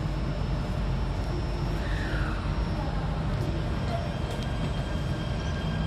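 Steady rumble and hum inside a Jakarta MRT carriage, with faint high-pitched tones joining in the second half.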